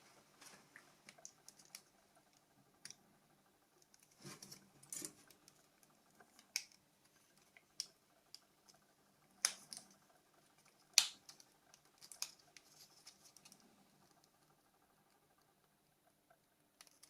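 Scattered light clicks and taps of a mobile phone's small plastic parts being handled and fitted together, with a few sharper clicks in the middle.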